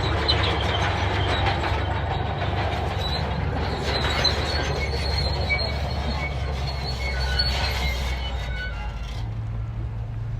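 Crawler bulldozer working: the diesel engine runs steadily while the steel tracks squeal and clank. About nine seconds in, the track squeal and clatter stop and the engine settles to a steady tone.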